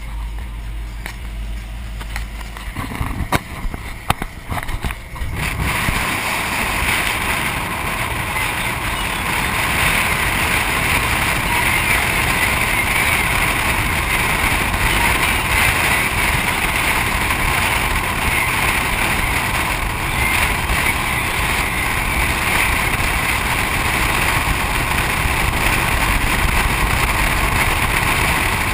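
A few knocks and bumps as the camera is handled and mounted, then, from about six seconds in, a steady rush of wind and road noise from a camera riding on the outside of a moving truck beside its tyre.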